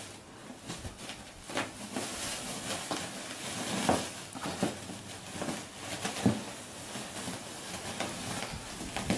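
Crinkling and rustling of a straw-stuffed woven plastic sack as a lion cub pounces on and wrestles it, with irregular sharper crackles as the sack is gripped and shoved.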